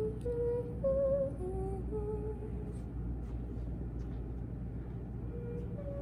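A voice humming a slow, simple tune, one note at a time, breaking off for a few seconds in the middle and picking up again near the end, over a steady low background hum.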